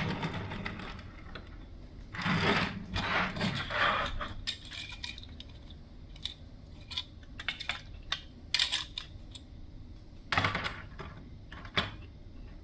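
Glass marbles rolling and clattering down a wooden marble run: a stretch of rolling from about two to four seconds in, then scattered light clicks and a few sharp knocks toward the end.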